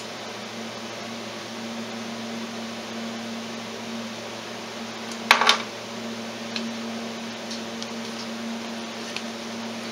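Hand-tool work on an ATV's clutch cover over a steady background hum: a sharp clatter about five seconds in, then a few faint clicks as the cover's screws are worked loose.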